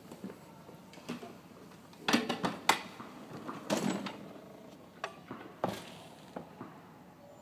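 Tennis ball bounced on the court and handled before a serve: sharp knocks, three in quick succession about two seconds in, then a heavier one and a few single knocks spaced out.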